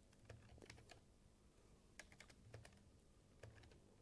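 Faint, irregular keystrokes on a computer keyboard as a phone number is typed, a few clicks at a time with short pauses between them.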